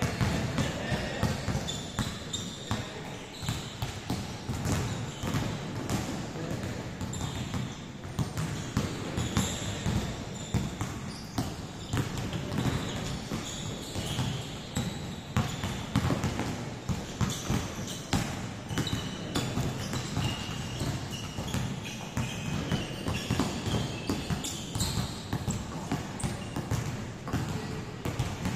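Several basketballs being dribbled on a wooden gym court, the bounces overlapping in an uneven, continuous patter that echoes in the large hall, with voices in the background.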